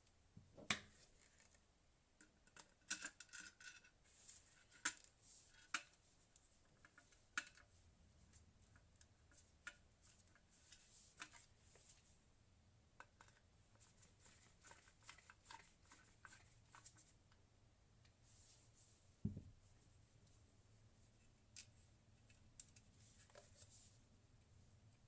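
Faint, scattered clicks, taps and short scrapes of hands handling computer hardware, with one duller knock a little past the middle.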